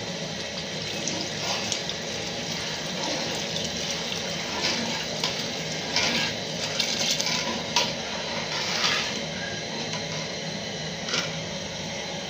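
Chicken stock poured from a metal bowl into a pot of tomato stew: liquid running and splashing in irregular gushes over a steady hiss.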